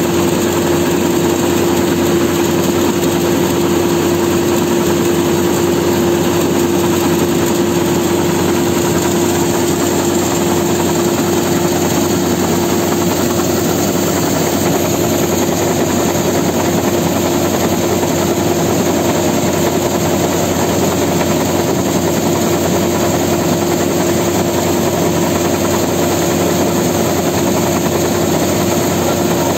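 Combine harvester running steadily while its unloading auger pours threshed paddy into a trailer: a loud, unchanging machine noise with a constant droning hum through it.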